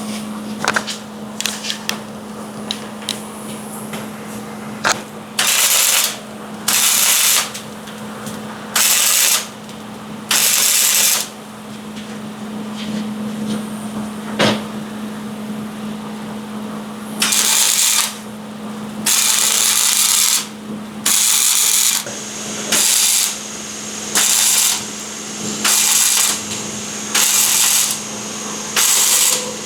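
MIG welding on an exhaust pipe: short crackling bursts of the welding arc, irregular at first and then in a steady run of tack or stitch welds about once a second, over a steady low electrical hum.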